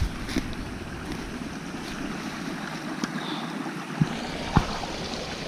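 Small rocky brook rushing and splashing over stones, swollen with spring water: a steady rushing noise, with some low wind rumble on the microphone in the first second or so. Two short knocks about four seconds in.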